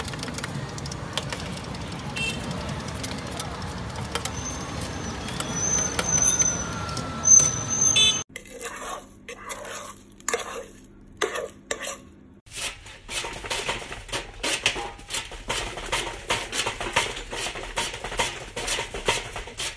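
Steady street-stall background noise while dough is sliced into a pot of water. The sound then cuts to a brief quieter stretch of a pan being stirred, followed by a lever cutter chopping sugarcane, about three to four chops a second.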